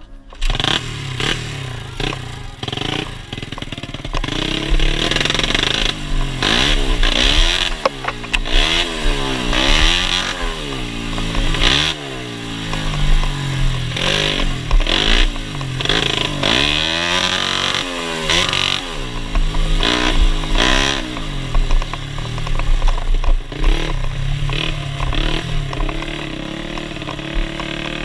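Yamaha Jupiter single-cylinder four-stroke engine of a trail bike being ridden, its exhaust note rising and falling again and again as the throttle is opened and closed, then running steadier and a little quieter near the end.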